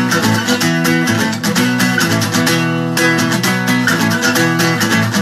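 Acoustic guitar strummed fast and steadily, chords ringing: the instrumental opening of the song.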